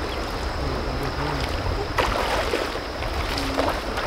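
Shallow rocky stream running, with wind rumbling on the microphone and a splash about two seconds in.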